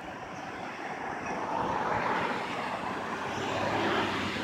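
Road traffic going by: a steady rush of tyre and engine noise that swells twice as vehicles pass, about two seconds in and again near the end.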